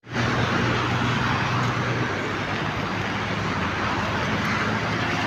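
Heavy rain falling steadily, with a vehicle engine running underneath as a low, steady hum.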